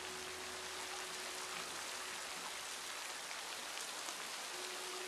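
Steady rain falling: an even hiss with scattered drops, and a faint steady low hum beneath it that fades about two seconds in.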